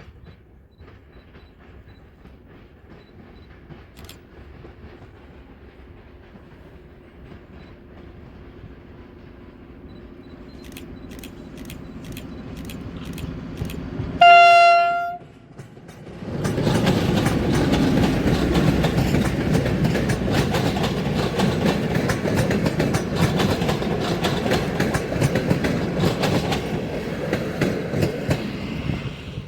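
A train approaches with a rumble that grows steadily louder. About halfway through, its locomotive sounds one short horn blast of about a second. It then passes close by, loud, with a continuous clatter of wheels over the rail joints.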